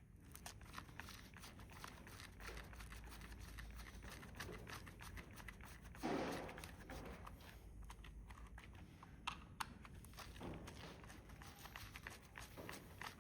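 Faint scattered clicks and scrapes of a small screwdriver working on a plastic remote-control case as it is handled, with one louder rustle about six seconds in.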